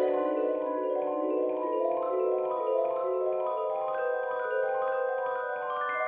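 Background music on a tuned mallet instrument: a run of overlapping pitched notes, a few each second, stepping higher in the second half.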